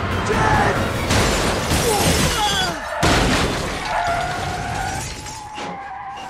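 Car crash effects: a Jeep Cherokee hits another vehicle with crunching metal and shattering glass, then a second loud crash about three seconds in. Tyres squeal near the end.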